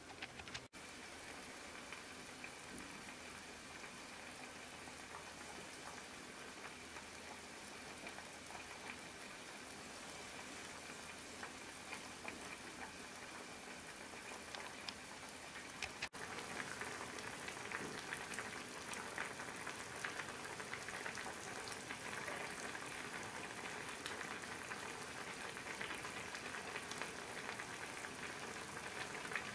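Broth simmering in a saucepan of daikon, carrot and fried fish balls, a steady faint bubbling and crackling. It drops out briefly just under a second in and again about halfway, after which the bubbling is louder and livelier.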